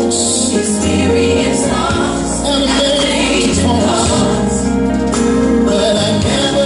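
Gospel music with a choir and lead vocals singing over a steady bass line.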